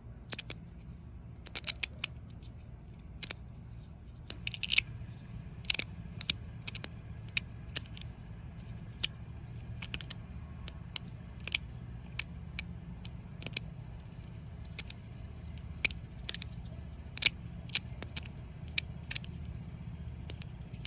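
Resin-printed magnetic fidget slider, its plates sliding and snapping shut against the magnets in irregular sharp clicks, about one to three a second, over a steady low hum.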